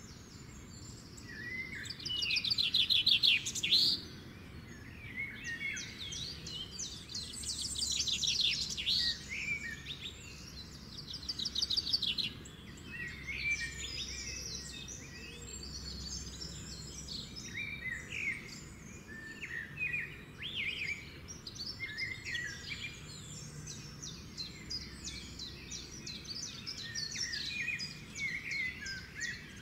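Birdsong: several birds chirping and trilling, with the loudest rapid trills a couple of seconds in and again from about 7 to 12 seconds.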